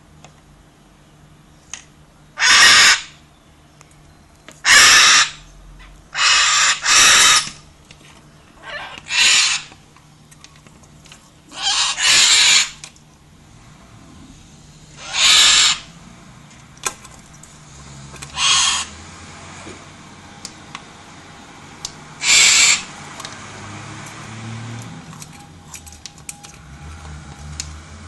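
White cockatoo giving loud, harsh screeches, about nine of them a few seconds apart, two in quick succession around seven seconds in.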